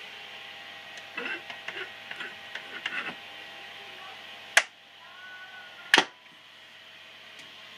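Two sharp, loud switch clicks about a second and a half apart as a push button on an argon ion laser power supply panel is pressed, over a steady background hum. Before them, from about a second in, a scatter of lighter clicks and handling noise; a faint rising whine is heard between the two clicks.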